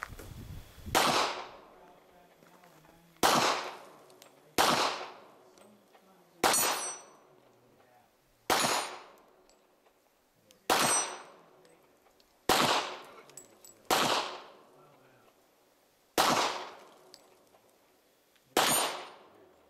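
Ten handgun shots fired one at a time, about one every two seconds, each a sharp crack with a trailing echo. Several are followed by the high ring of a steel target plate being hit.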